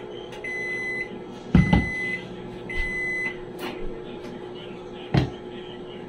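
A kitchen appliance beeps four times, each beep long, high and even, about a second apart, then stops, over a steady appliance hum. Two heavy thumps come about a second and a half in and about five seconds in.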